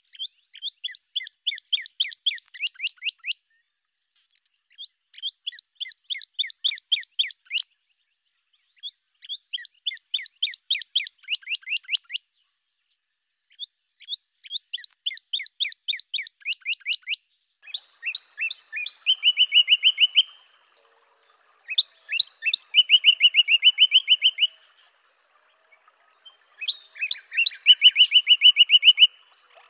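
Northern cardinal singing: seven phrases of rapid, repeated down-slurred whistles, each about three seconds long with short pauses between. In the last three phrases the song changes to a few loud down-slurs followed by a fast, lower trill.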